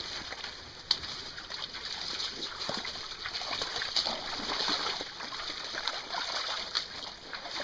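Splashing of a dog and a person wading through a shallow, rocky creek over the stream's steady running water, with a couple of sharper splashes about one and four seconds in.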